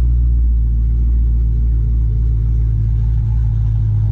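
Straight-piped car engine running with a steady low rumble as the car moves off gently on a test drive.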